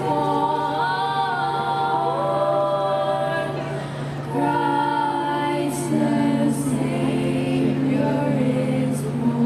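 Youth choir singing unaccompanied in sustained multi-part harmony, with a short break between phrases about four seconds in. A steady low hum runs underneath.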